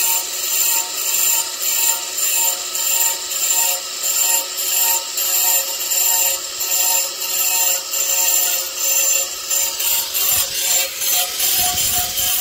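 Angle grinder with a diamond blade scoring a granite stair tread, swept back and forth in rhythmic grinding strokes a little under two a second over the steady whine of the motor. This roughens the stone into an anti-skid surface. The rhythm breaks up near the end.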